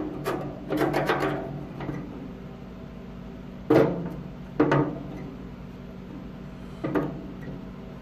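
Pencil scratching marks onto the rusted steel of an old charcoal grill's firebox for about the first second, then three single knocks, two close together near the middle and one near the end, over a faint steady hum.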